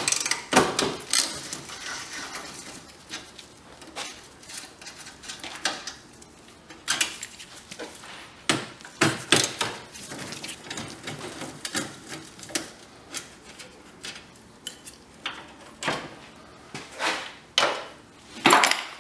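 Ratchet wrench with a long socket extension working the radiator's upper mounting bolts loose: irregular metallic clicks and clinks of the tool on the bolts and bracket, in several short spells, with a louder knock near the end.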